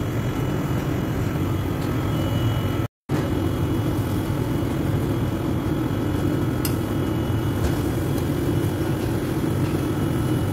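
A steady low rumble that drops out for a moment about three seconds in.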